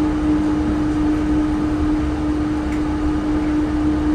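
Yurikamome 7500-series rubber-tyred automated guideway train running between stations, heard from inside the car: a steady hum of running noise with one strong, unchanging tone.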